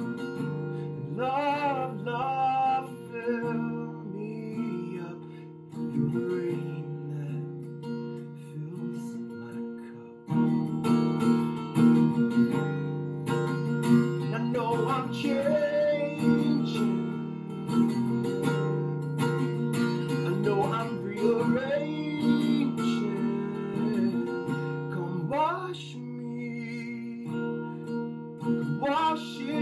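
A man singing in phrases over a strummed acoustic guitar.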